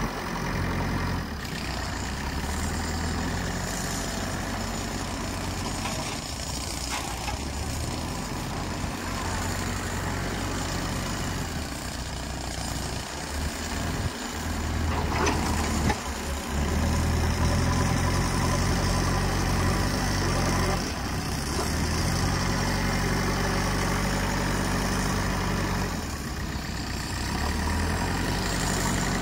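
JCB 3DX backhoe loader's diesel engine running and revving as the front bucket scoops and lifts soil. The engine gets louder and higher for several stretches in the second half, and there are a couple of knocks about halfway through.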